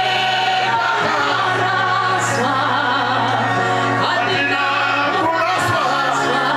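Gospel singing in Shona, voices together in choir fashion, over sustained low bass notes.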